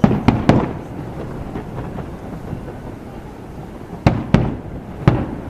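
Aerial fireworks shells bursting in sharp bangs: three in quick succession at the start and three more about four to five seconds in, over a steady background hum.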